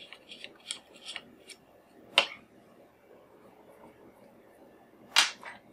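Light clicks and taps of hands handling a small coaxial attenuator and its connectors, with a sharp click about two seconds in and a louder one near the end.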